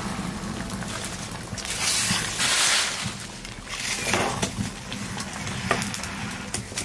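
Chicken and green papaya curry boiling in a steel pan, stirred and sloshed with a metal ladle, louder for a moment about two seconds in, with a short sharp click near the end.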